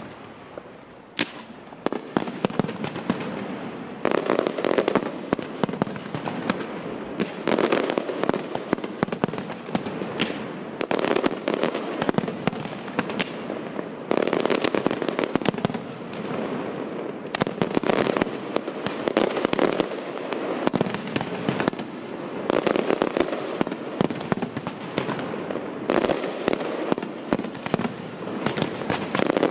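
Fireworks display: aerial shells bursting with many sharp reports and dense crackling, swelling into a fresh barrage about every three seconds.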